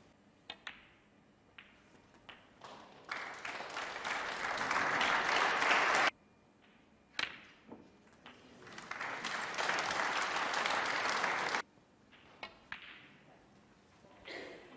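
Audience applause heard twice, each time swelling for about three seconds and then cut off suddenly, with a few sharp clicks of snooker balls striking in between.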